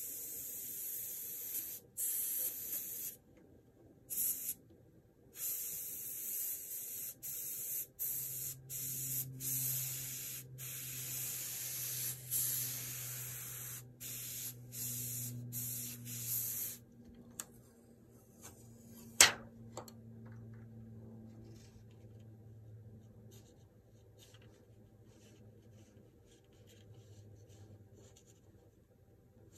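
Airbrush spraying in short on-off bursts of hissing air, about a dozen over the first half or so, as the trigger is pressed and released. A couple of seconds after the spraying stops comes a single sharp click, the loudest sound here, followed only by faint ticks.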